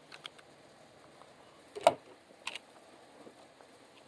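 Sharp metallic clicks from a 9mm pistol being handled: a few light clicks at the start, then one loud clack a little under two seconds in and a smaller one about half a second later.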